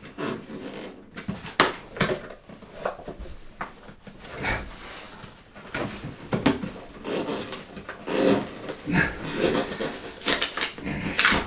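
A large boxed vacuum cleaner being struggled with and dragged out of its cardboard packaging: repeated knocks, scrapes and rustles, with strained grunts and breaths from the effort.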